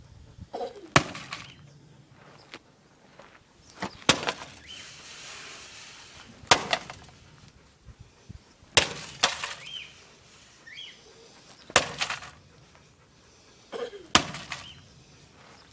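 Sledgehammer blows smashing a DVD player's metal case, six sharp crashes about two to three seconds apart, each ringing briefly as the case breaks.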